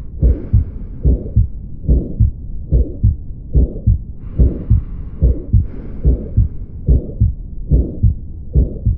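Heartbeat heard through a stethoscope at about 75 beats a minute. Each beat is a pair of low heart sounds with a murmur between them, the sign of aortic stenosis.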